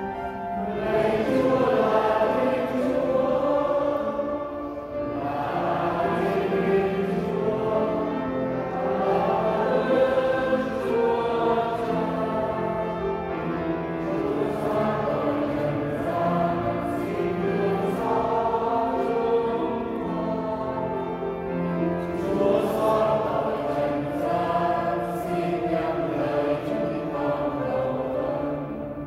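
Vietnamese church choir singing together in sustained phrases.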